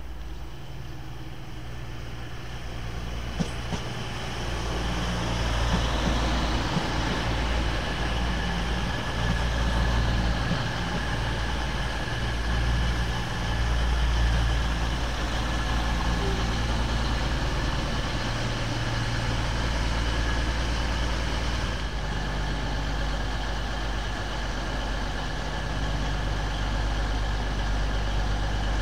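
Diesel passenger train's engines running with a steady low rumble, getting louder about five seconds in.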